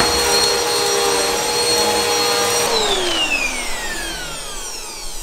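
Bissell bagless upright vacuum cleaner running steadily with a motor whine as it sucks up spilled sugar from a hardwood floor. It is switched off about two and a half seconds in, and its whine falls in pitch and fades as the motor spins down.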